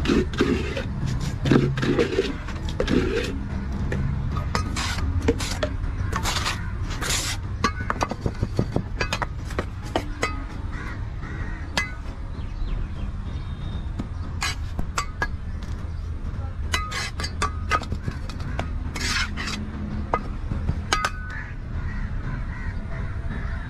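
Hand trowel working wet concrete into a baluster mould: irregular sharp clicks, knocks and scrapes as the blade strikes and drags over the mould and the concrete, over a steady low hum.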